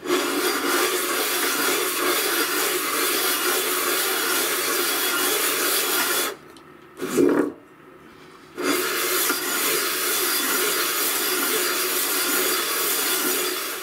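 Volvo raw-water pump body rubbed face-down on an abrasive sheet, a steady rasping scrape as the worn face is lapped flat. The rubbing stops for about two seconds in the middle, broken by one brief knock, then starts again.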